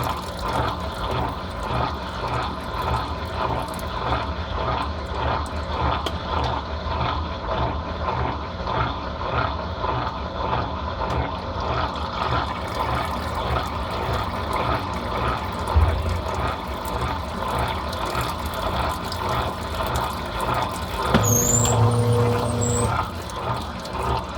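Brastemp Total 7 kg (BWL07) top-load washing machine running its wash cycle, with a regular back-and-forth rhythm of agitation and water sloshing. Near the end a steady hum joins in for about two seconds.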